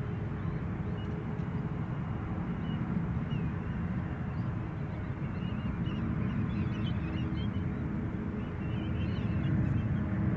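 Boeing 777 jet engines at takeoff power, a steady distant rumble growing a little louder near the end as the airliner rolls down the runway. Birds call faintly over it from about halfway through.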